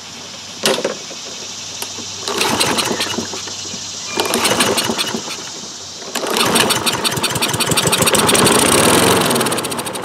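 Single-cylinder Kohler engine on a Toro Recycler lawn mower pull-started on starting fluid sprayed into the carburetor throat. After a sharp knock, it fires in two short bursts, then runs for about three seconds before fading away at the end. It runs only on the starting fluid, which shows that compression, spark and timing are good but no fuel is flowing through the carburetor.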